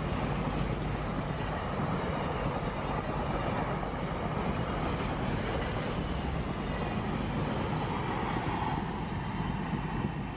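Container freight train wagons rolling past on the track: a steady noise of wheels running on the rails.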